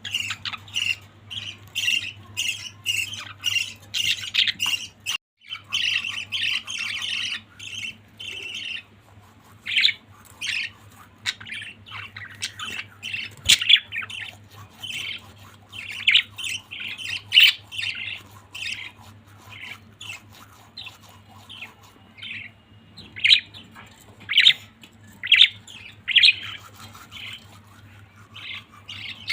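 Pet budgerigars chattering and squawking: a fast, continuous run of short calls for the first several seconds, then sparser, separate chirps and squawks. A faint low steady hum runs underneath.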